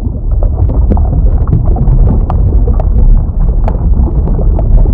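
A loud, deep rumbling sound effect with scattered clicks and pops, playing under an animated underwater logo.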